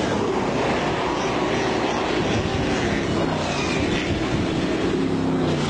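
Several sprint car V8 engines running at racing speed as the cars lap the track, their pitch rising and falling as they pass.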